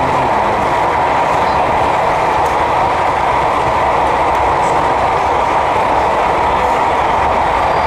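Model train running on an exhibition layout, with a steady hubbub of the exhibition hall around it.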